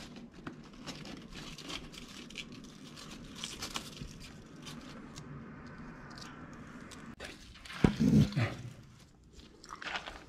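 Bornean orangutan in a transport crate biting and chewing leafy greens: crunching and crackling with scattered clicks. About eight seconds in comes a louder, deeper thump.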